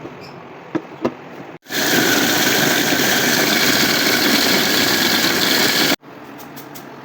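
Electric grinder motor running at full speed with a steady whine. It starts abruptly about a second and a half in and cuts off suddenly about four seconds later.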